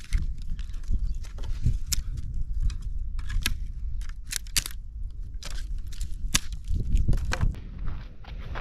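Dry dead branches snapped by hand for firewood: a run of sharp cracks and splintering, several each second, over a low steady rumble.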